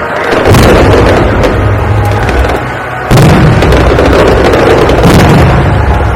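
Aerial fireworks shells bursting overhead: three big booms roughly two to two and a half seconds apart, each trailing off in a long rumble, with sharp crackling pops in between.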